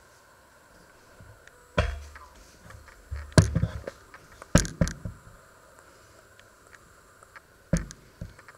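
A few sharp knocks and clatters, about four spread over the stretch, with the low rumble of a handheld phone being moved about.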